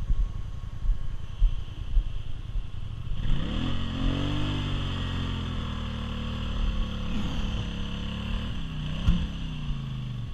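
ATV engine revving hard under load as the quad churns through deep mud, the revs climbing about three seconds in, holding, and dropping back near the end. Before that, a low engine rumble with knocks of wind on the microphone.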